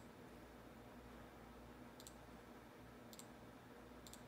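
Near silence with a few faint, sharp clicks of a computer mouse: one about two seconds in, one a little past three seconds, and a quick double click near the end.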